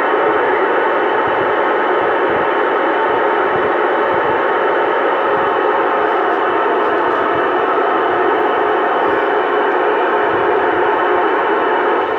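Radio receiver hissing with steady static between transmissions, a dense even rush squeezed into the narrow voice band, with a couple of faint steady tones underneath.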